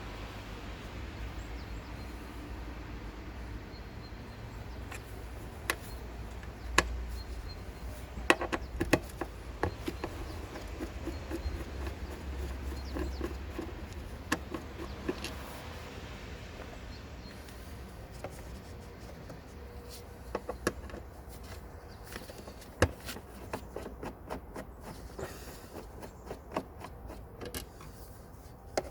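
Mercedes-Benz OM651 four-cylinder diesel idling steadily, with irregular short chirps and clicks over the low running. It is the chirping at idle that the owner says affects nearly all OM651s fitted with the two-stage turbocharger.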